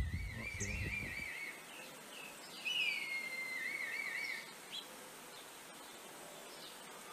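Red kites calling: two high, plaintive whistled calls. The first is a quavering whistle that ends about a second and a half in; the second glides down and breaks into the same quavering trill. A low rumble is heard in the first second or so.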